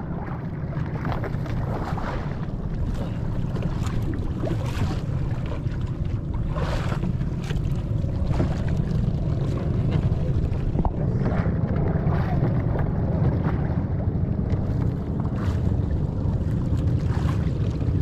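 Wind buffeting the microphone and sea noise aboard a small fishing boat: a steady low rumble with scattered splashes and knocks.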